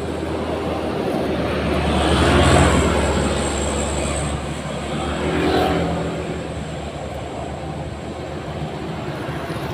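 Engine running steadily, with two louder swells about two and a half and five and a half seconds in, like vehicles passing.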